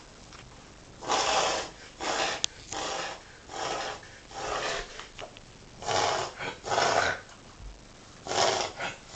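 A dog reverse sneezing: a string of harsh, forceful snorting breaths drawn in through the nose, each about half a second long. They start about a second in, pause briefly near the middle, and come in two more short runs.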